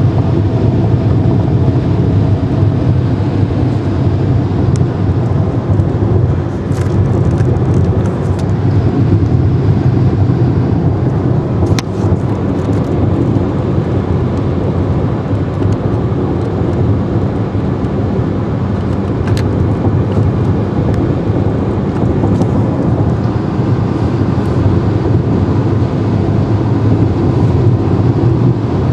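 Steady in-cabin drone of a 2011 Hyundai Elantra cruising at about 80 mph on the highway: low engine and tyre noise mixed with wind rush, with a few faint ticks.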